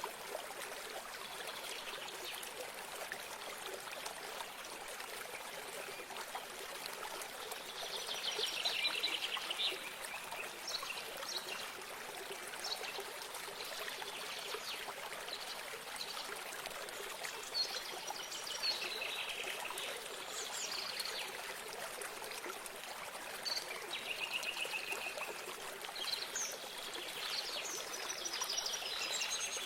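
A small stream or spring trickling steadily, with several short bursts of bird song over it, the strongest a few seconds apart in the second half.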